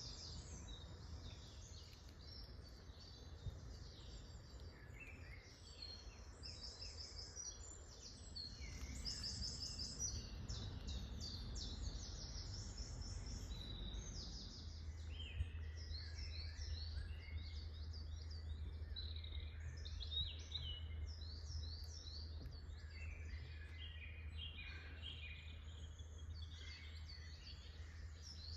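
Several woodland songbirds singing and calling at once, short overlapping phrases throughout, over a low steady rumble that grows more even about halfway through.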